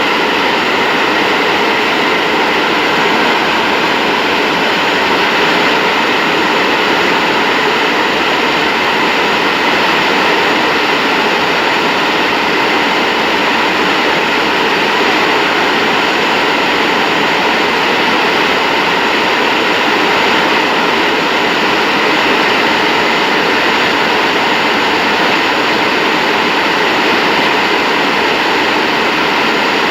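Boeing 737-800's CFM56-7B turbofan engine turning over on its starter for a compressor wash. It makes a loud, steady rushing whine that does not change in pitch or level.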